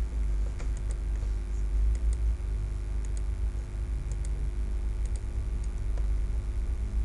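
Scattered clicks of a computer mouse and keyboard over a steady low microphone hum.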